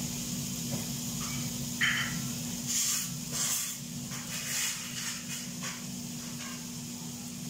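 Chicken skewers sizzling on a hot flat griddle, with a few louder spurts of sizzle from about three to five seconds in, over a steady low hum. A short high squeak about two seconds in.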